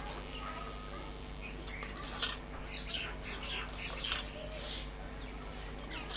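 Small birds chirping in the background, with two sharp metallic clicks, about two seconds in and about four seconds in, as nuts are set onto the bolts of a steel U-clamp on the antenna mast pipe.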